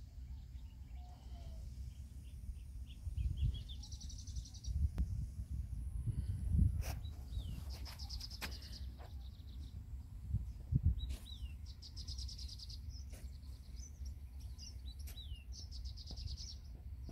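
Birds calling in the open: a fast trill that comes back every few seconds, with short downward-slurred chirps between, over an uneven low rumble of wind on the microphone that swells a few times.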